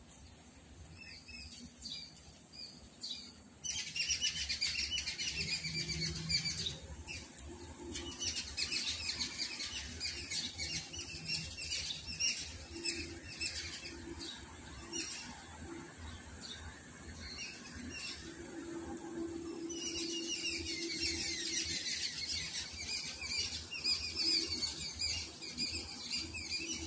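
Many small birds chirping together in a dense, overlapping chorus that starts about four seconds in, thins out in the middle and swells again near the end.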